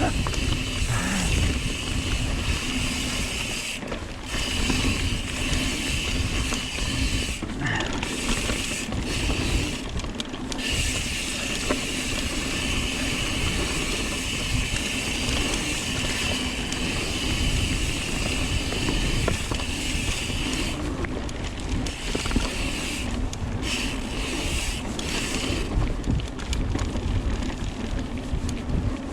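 Mountain bike (Trek Slash) riding down a dirt trail: tyres rolling and the bike rattling over the ground, with the rear hub's freewheel buzzing while coasting and cutting out briefly several times.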